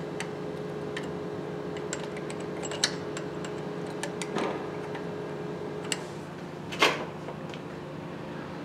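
Scattered light metallic clicks and knocks as the oil pump's mounting screws are threaded by hand and the aluminium pump is seated against the engine block, the loudest knock about seven seconds in. A steady background hum runs underneath.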